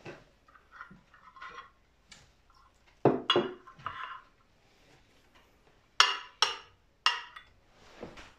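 Small metal parts of a model Stirling engine clinking and knocking as they are set down by hand on its metal base plate: faint clicks at first, then sharp knocks about three seconds in and a quick run of three more near the end.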